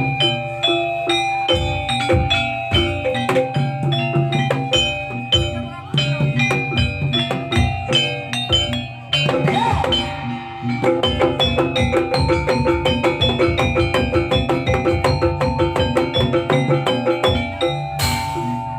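Live jaranan gamelan music: drums keep a fast, steady beat under ringing metallophones and gong-chimes playing repeated patterns. A short burst of noise comes near the end.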